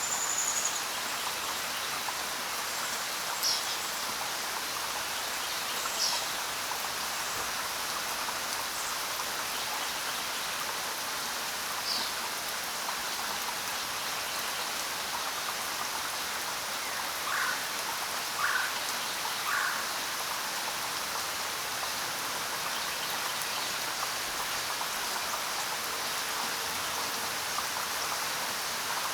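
Steady rainfall, an even hiss, with a few brief high bird chirps scattered through it and three short lower calls about a second apart near the middle.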